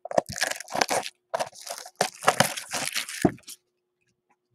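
A sealed cardboard trading-card blaster box being torn open by hand: a run of irregular tearing, crackling and crinkling of wrapping and cardboard that stops about three and a half seconds in.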